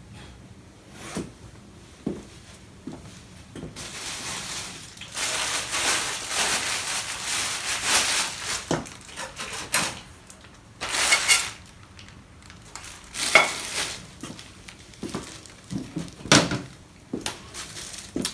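Household items being handled and packed into a bag: scattered knocks and clinks, with a stretch of rustling noise lasting several seconds a few seconds in.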